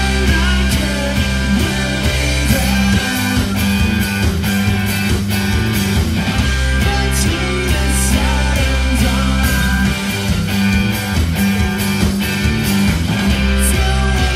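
Rock band playing live and loud: electric guitars over bass guitar and drums, with sustained bass notes under the guitar lines.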